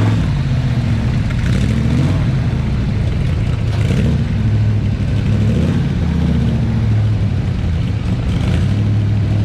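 A car engine running steadily nearby, a loud, low-pitched sound that wavers slightly in pitch without stopping.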